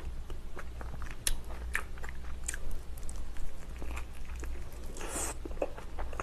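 Close-miked eating of spicy sauce-coated dumplings: biting and chewing with wet mouth clicks, smacks and soft crunches, and a short hissing sound about five seconds in.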